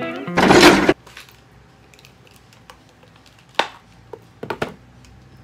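Guitar music cuts off at the start, then a loud rush of noise about half a second long. After that come a few soft clicks and knocks of small objects being handled, among them a pair of plastic eyeglasses being unfolded.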